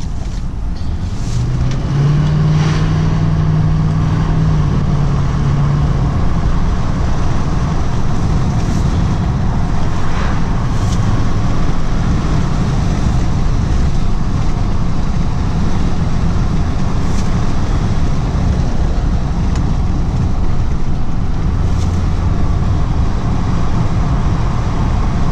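2019 Duramax L5P 6.6-litre V8 turbo-diesel truck driving, heard from inside the cab: a steady low engine rumble with road noise as it gathers speed to about 40 mph and then cruises. A held engine tone sounds for a few seconds starting about a second and a half in.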